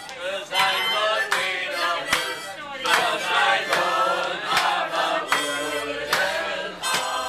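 Harmonica playing a tune while a busload of people sing along loudly, with hand claps keeping time about every 0.8 s.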